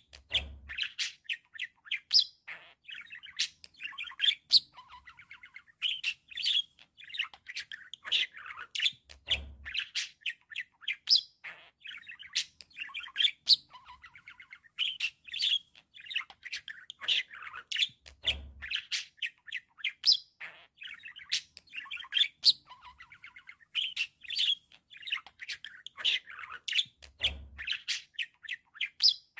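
Pet budgerigars chirping and warbling in a quick, busy run of sharp high chirps and clicks with short gaps; the same run of calls repeats about every nine seconds.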